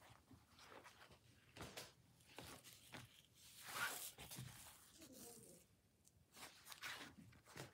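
Faint rustling and swishing of upholstery and cotton fabric pieces being turned over by hand, in a few separate strokes, the loudest about four seconds in.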